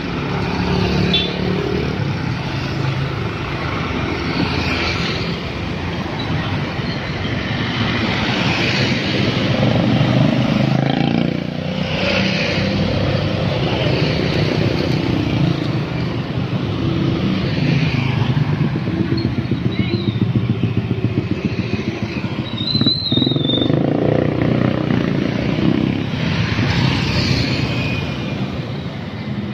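Busy road traffic passing close by: a steady stream of small motorbikes, scooters and cars. Their engines swell and fade every few seconds as each one goes past.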